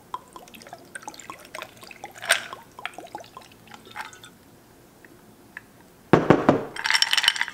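Ice cubes clicking against each other in a tall glass, then vodka poured over the ice about six seconds in: a loud splash followed by a dense fizzing crackle as the liquid runs over the cubes.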